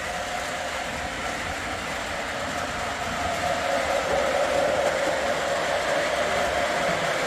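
O gauge model diesel locomotives running around a layout track: a steady whirring of motors and wheels on rail, growing a little louder about three and a half seconds in as a train comes closer.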